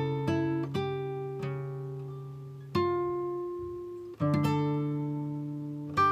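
Background music: slow acoustic guitar, single plucked notes and chords left to ring and fade between strikes.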